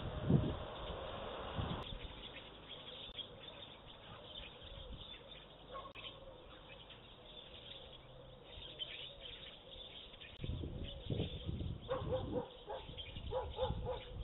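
Village outdoor ambience with small birds chirping throughout. About twelve seconds in, a dog barks several times in quick succession, and there are a few low rumbles.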